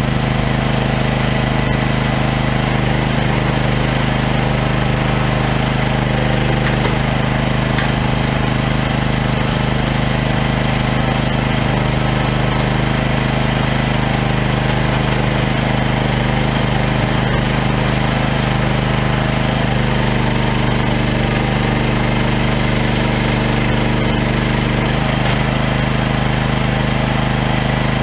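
Regon R1 firewood processor running steadily as a log is fed into it: a continuous mechanical drone with machine noise over it. The drone shifts in pitch about two-thirds of the way through, as the machine's load changes.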